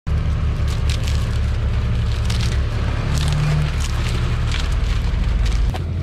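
A heavy machine's engine running with a deep, steady note, with sharp clanks and crackles every second or so. Near the end the engine note changes and gets a little quieter.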